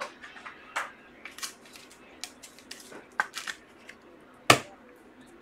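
Trading cards being handled: scattered light clicks, taps and rustles of cards and their packaging, with one sharper click about four and a half seconds in.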